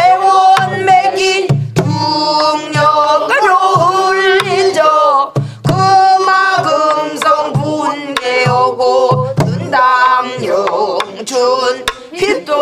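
A woman singing pansori in long held notes that bend and waver, accompanying herself on a buk, a Korean barrel drum, struck with a stick in an irregular pattern of low, short strokes.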